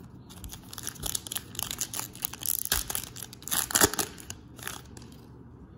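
Crinkling and crackling of a baseball card pack wrapper as it is handled, with cards rustling in between. It comes in a run of irregular crackles, loudest a little before four seconds in, and dies away after about five seconds.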